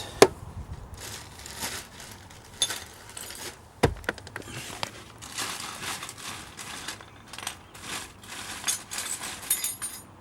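Irregular clicks, knocks and rustling of hands and tools working on the car's under-dash panel and its bolts, with a sharp knock just after the start and another about four seconds in.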